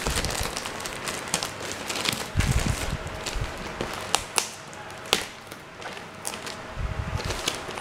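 Plastic courier mailer bag being handled and shifted about: crinkling rustles with scattered sharp taps, and low thuds about two and a half seconds in and again near the end.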